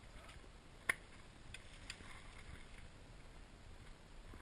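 Mountain bike riding down a rocky, leaf-covered forest trail: a low steady rumble of the ride with a few sharp clicks and knocks from the bike over rocks, the loudest a single sharp knock about a second in.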